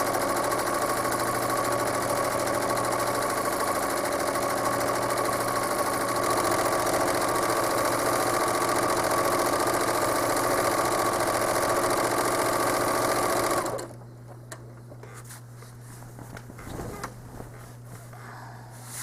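Home sewing machine stitching steadily at speed during free-motion quilting, running a little faster about six seconds in, then stopping abruptly with about five seconds left.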